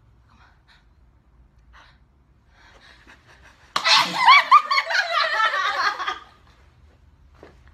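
A young woman sneezes suddenly about four seconds in, and it runs straight into about two seconds of loud, high-pitched laughter.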